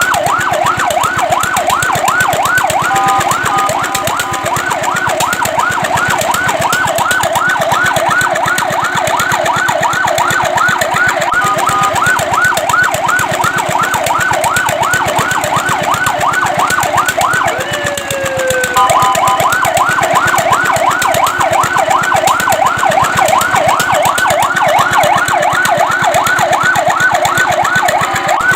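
Fire truck's electronic siren on a fast yelp, about three to four rising sweeps a second. It is broken three times by a short steady chord-like tone, and about two-thirds through it lets up for a second with a falling tone before the yelp starts again.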